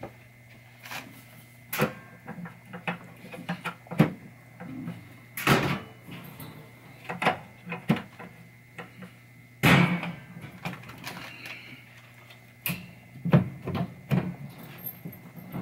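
Irregular knocks, clicks and scrapes of a pinball back glass in its trim being handled and worked down into the backbox. The loudest are a few longer scraping clunks near the middle.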